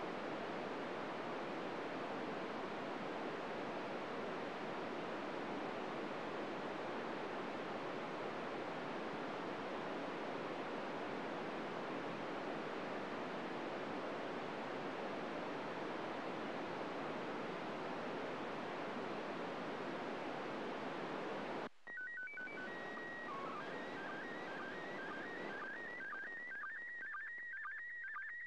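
FM radio receiver tuned to the ISS downlink on 145.800 MHz, giving a steady static hiss for about twenty seconds. The hiss then drops out as the space station's SSTV signal captures the receiver: a few steady header beeps, then the rhythmic warbling tones of a PD120 picture starting to transmit, repeating about twice a second.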